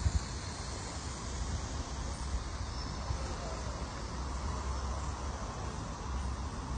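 Steady low wind rumble on the microphone over a faint outdoor hiss, with the quiet running of a small enclosed electric three-wheeler rolling slowly over concrete.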